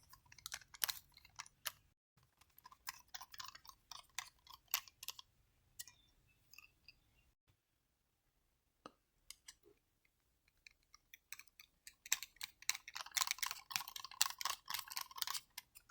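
Screws being driven into an RC car's servo mount with a small screwdriver: scattered light clicks and scrapes of metal on plastic, with a denser run of clicking near the end.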